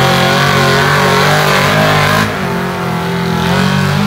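Pickup truck engine running hard at high revs as it drags a weight-transfer pulling sled. About halfway through, the sound drops slightly and the hiss above it falls away, while the engine keeps pulling.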